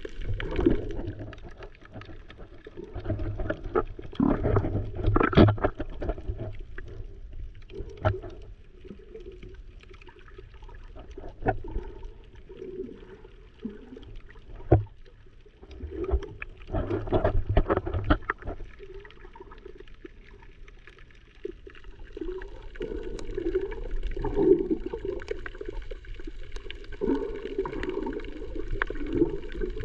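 Muffled water sloshing and gurgling, with scattered sharp knocks and clicks, swelling and fading in waves.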